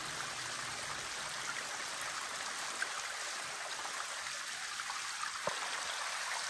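Water running down the rock inside a cave like a small waterfall: a steady, even rush.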